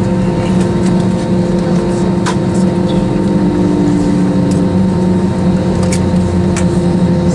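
Cabin noise of an Airbus A321 taxiing to the gate: a steady hum of the idling jet engines and cabin air, with several held tones. A few faint clicks sound about two seconds in and again near the end.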